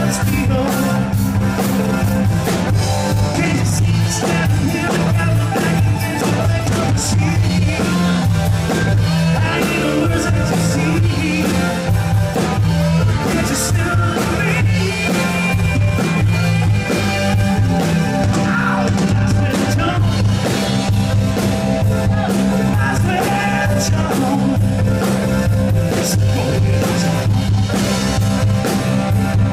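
A rock band playing live through its sound check, loud and continuous, with a steady bass line.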